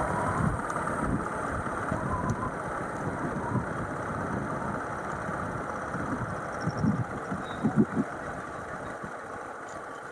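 Motorcycle running along a paved road: steady engine and road noise with wind rumbling on the microphone, slowly getting quieter toward the end.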